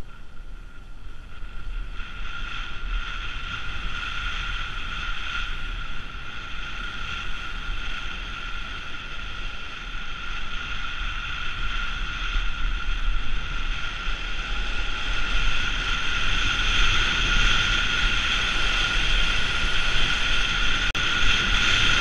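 Skis sliding fast over hard-packed snow, a steady hiss with a high whine in it, while wind rumbles on the microphone. It grows steadily louder as speed builds.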